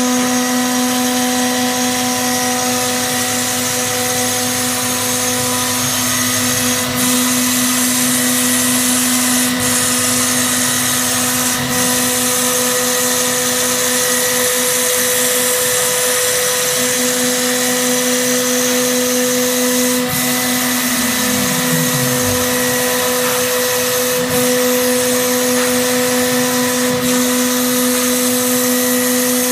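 CNC router spindle running with a steady whine as its cutter mills a white plastic sheet, with a few faint ticks. A short falling tone comes about three quarters of the way through.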